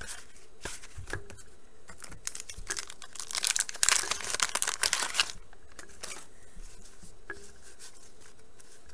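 A wax pack of 1989 Bowman baseball cards torn open, its wrapper tearing and crinkling for about two and a half seconds in the middle. Light taps and rustles of cards being handled come before and after.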